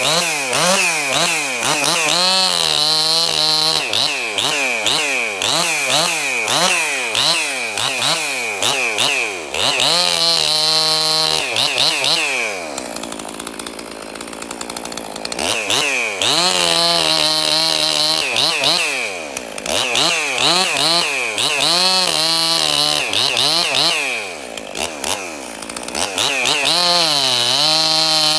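Ported Husqvarna 262XP two-stroke chainsaw, just reassembled, revved again and again in quick rises and falls and held at full throttle for a second or two at a time, dropping to a lower, quieter speed for a few seconds about halfway through.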